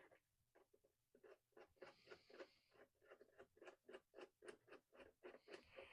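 Faint, rhythmic clicking, about four clicks a second, as a screw is driven back into the latch on the back of a PC case.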